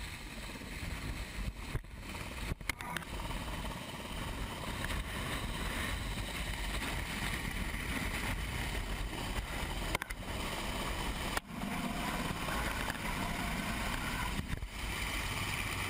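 Steady rushing noise of helicopter rotor downwash and wind over a camera riding a rescue hoist basket above water, broken by a few very brief gaps.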